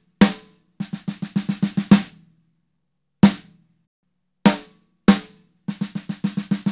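Snare drum struck with Vic Firth 5B sticks, first wooden-tipped and then nylon-tipped, to compare the tip materials. Single accented hits alternate with two quick runs of about ten strokes that grow louder, each stroke ringing briefly.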